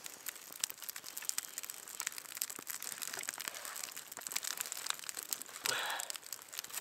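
Newly lit campfire of oily birch bark and ice-wet twigs crackling and popping, a scatter of sharp little snaps, with a short rushing sound near the end.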